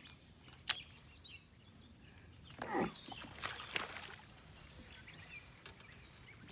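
A sharp click under a second in, then a short whir falling in pitch and a light splash: a cast with a baitcasting reel, the lure landing on the water. Birds chirp faintly.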